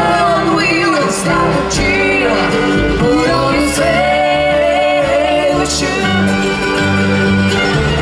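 Live country band playing a song, with singing over it.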